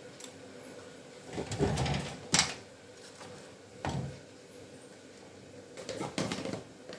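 Kitchen handling noises: a few brief scrapes and knocks, with one sharp click about two and a half seconds in.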